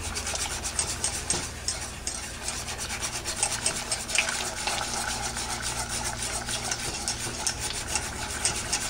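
Wire whisk beating all-purpose flour into turkey-neck cooking liquid in a nonstick saucepan: rapid, even strokes of the wires scraping and rubbing against the pan, the first stage of a flour-thickened gravy.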